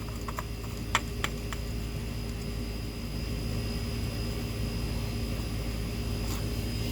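Steady fan-like hum with a few light clicks in the first second or so, as a new oil filter is screwed on by hand.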